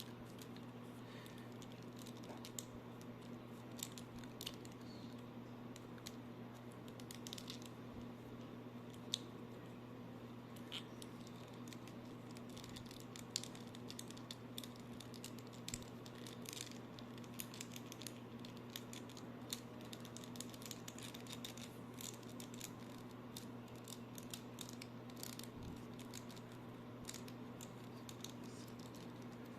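Scattered faint clicks, taps and light rustles from handling a boxed action figure and its plastic packaging, over a steady low electrical hum.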